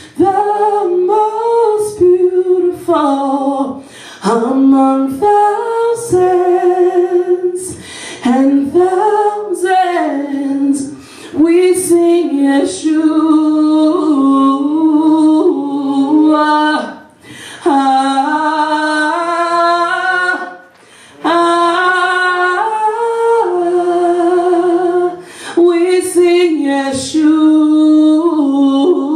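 A woman singing solo into a microphone, slow, with long held notes that waver in pitch and short breaths between phrases.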